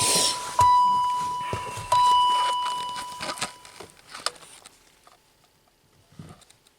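A car's electronic warning chime: a steady tone struck again about every second and a half, fading out after about four seconds. Light clicks and knocks follow.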